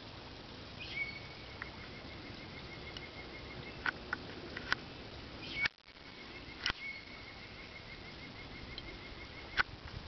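A bird's level, rapid trill, given twice and each time lasting nearly three seconds, with a few short sharp chirps between.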